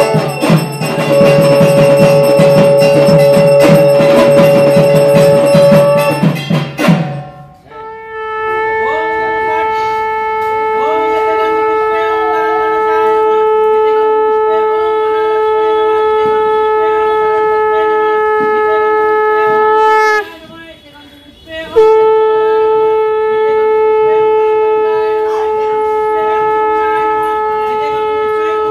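Conch shell (shankha) blown for puja: one long steady held note that breaks off for a moment about twenty seconds in and then sounds again. For the first several seconds, before the conch, dense rapid drumming with clattering.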